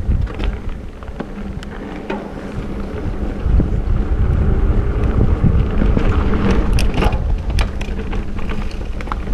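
Wind buffeting the camera microphone as a mountain bike rolls downhill, with tyre noise and scattered rattles and clicks from the bike. It grows louder from about three and a half seconds in as the bike speeds up.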